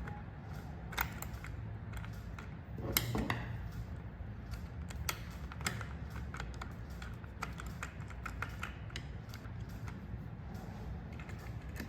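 Scattered light clicks and taps of small curtain-track parts being handled and fitted together during assembly, with a slightly louder clatter about three seconds in, over a steady low hum.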